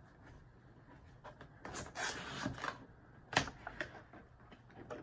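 Cardboard packaging being handled and opened: rubbing and scraping of the box and its sticky closure, with several sharp clicks and a louder knock about three and a half seconds in.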